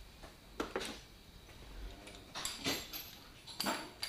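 Metal hand tools and sockets clinking in a steel tool-chest drawer: a couple of sharp clinks under a second in, a small cluster around two and a half seconds, and another just before the end, each with a short metallic ring.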